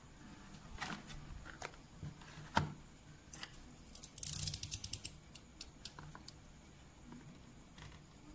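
Cardboard toy packaging handled and turned over, with a few light taps and one sharp knock. About four seconds in comes a quick run of a dozen or so clicks, a snap-off utility knife's blade being slid out.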